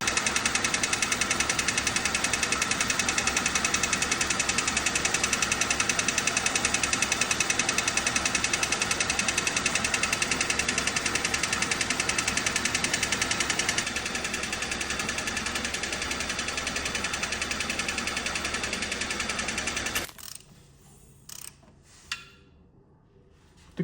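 Hyundai Solaris's new Chinese-made G4LC 1.4 four-cylinder engine running with a fast, even, metallic knocking, the knock being sought in this new engine. The sound cuts off abruptly about twenty seconds in, followed by a couple of faint clicks.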